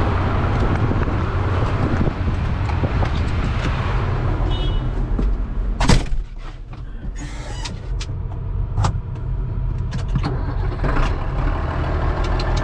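Large farm tractor's diesel engine running steadily, close up. About six seconds in there is a sharp knock, after which the engine is heard more muffled from inside the cab, with scattered light clicks and rattles.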